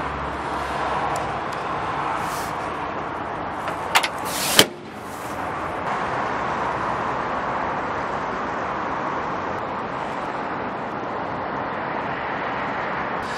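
Steady background noise, broken about four and a half seconds in by a click and then a loud slam of a truck cab door being shut.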